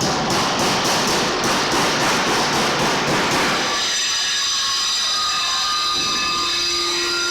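Loud machine noise pulsing about three times a second, giving way about halfway through to a steady high-pitched whine made of several tones.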